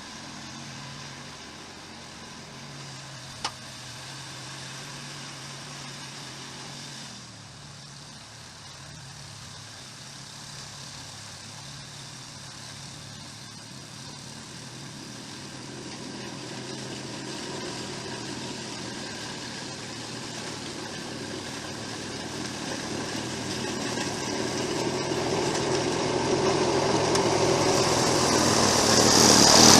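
Snowblower engine running steadily, growing steadily louder through the second half, with a single sharp click about three and a half seconds in.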